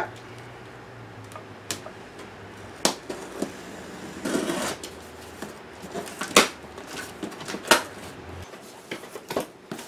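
Box cutter slitting packing tape on a cardboard shipping box, then the cardboard flaps being pulled open: scattered sharp clicks and crackles of tape and cardboard, with a short rustle about four seconds in.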